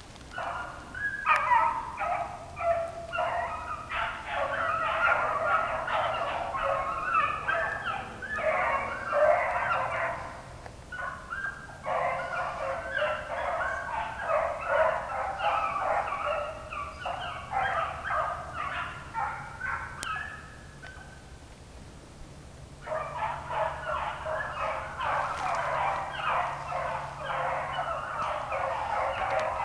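A pack of beagles baying on a rabbit's trail, many voices overlapping in a continuous chorus. The pack falls quiet for about two seconds about two-thirds of the way through, then takes up the cry again.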